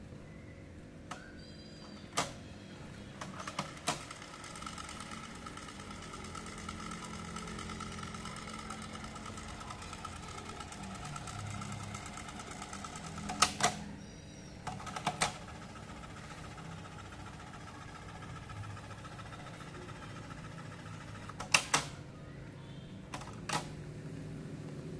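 Marantz SD-3030 cassette deck's mechanical transport keys clicking as they are pressed and released, several times. Between the presses the tape transport runs with a steady whir.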